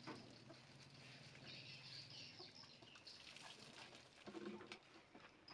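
Near silence: faint background with a low steady hum and a few faint scattered sounds.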